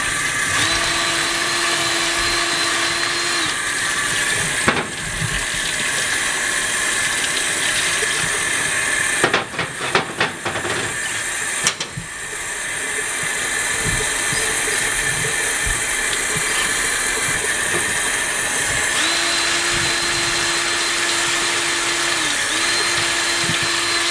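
Tap water running into a utility sink as a sandblasted cast brake master cylinder is rinsed under it to flush out the blasting sand, with knocks and scrubbing of the metal cylinder around the middle. A steady hum comes in about a second in for a few seconds and again for the last several seconds.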